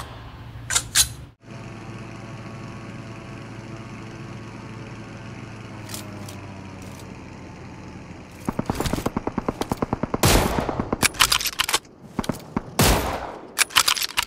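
Automatic gunfire in a mobile shooter game. A steady low hum plays for the first several seconds, then rapid fire breaks out about eight seconds in and goes on in several short bursts.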